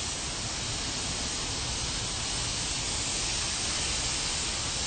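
Water spraying steadily from a watering wand's nozzle onto potted tropical plants: an even hiss that holds at one level.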